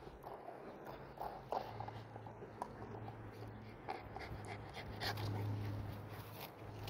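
Small dog, a dorgi, panting hard from running after a frisbee, with scattered light clicks and rustles.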